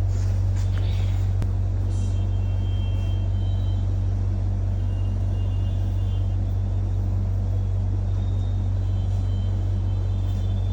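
A steady low hum or rumble, unchanging throughout, with faint brief high-pitched tones now and then.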